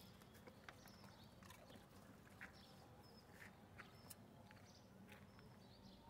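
Near silence: a faint low hum with scattered soft clicks and ticks.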